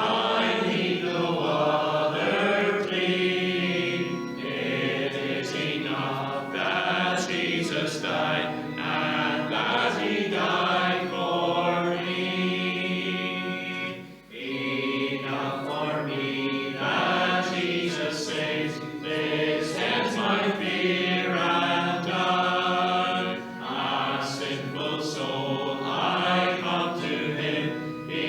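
A church congregation singing a hymn together in sustained phrases, with a short breath between lines about halfway through.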